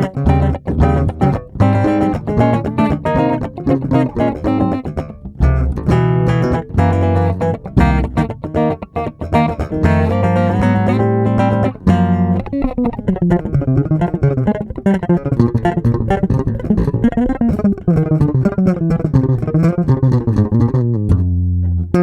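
Electric bass guitar played solo: quick notes with sharp attacks for about the first half, then a passage of sliding notes that glide up and down in pitch, stopping suddenly at the end.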